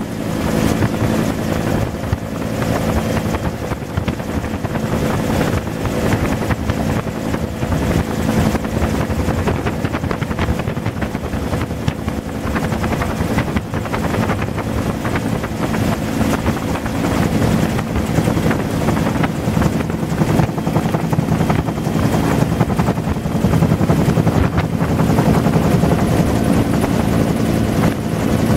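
Bell UH-1 "Huey" helicopter in flight, heard from inside the cabin: the steady beat of its two-bladed main rotor over the drone of its turbine engine.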